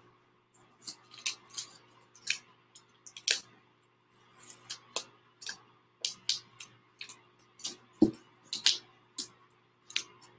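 Irregular crinkles and sharp little clicks of blue painter's tape being handled: pressed down on a tabletop, peeled up and balled in the hands.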